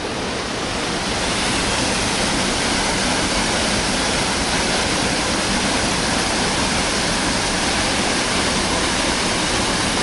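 Waterfall in full flow, carrying a lot of water: a steady, loud rush of falling water, growing a little louder over the first second and then holding even.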